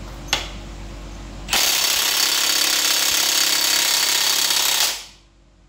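Power tool, most likely an impact wrench, hammering hard for about three seconds on a stuck cylinder-head bolt of a Peugeot XK4 engine, trying to break it loose, then stopping abruptly. A sharp click comes just before.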